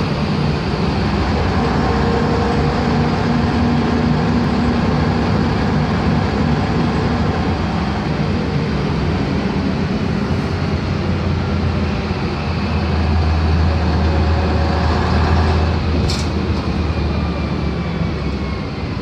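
LiAZ-5256.30 city bus's YaMZ-236 V6 diesel engine running under way, with road and body noise, heard from inside the passenger cabin. The low drone grows stronger for a few seconds past the middle, and a short sharp click comes about three quarters of the way in.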